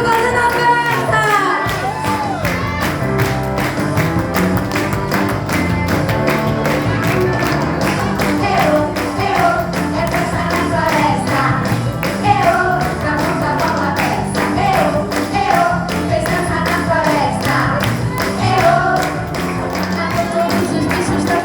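A song playing: singing over a fast, steady percussion beat.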